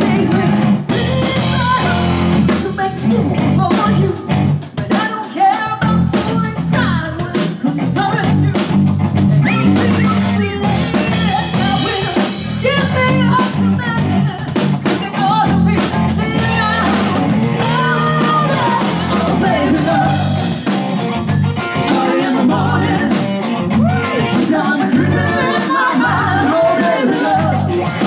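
Live rock and soul band playing: a woman singing lead over electric guitar, electric bass and a drum kit.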